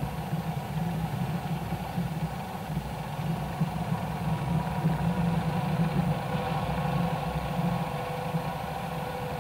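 A motor vehicle's engine running steadily, a low, even drone.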